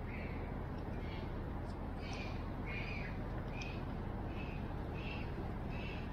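A bird calling over and over, short calls about one every half second to second, over a steady low background hum.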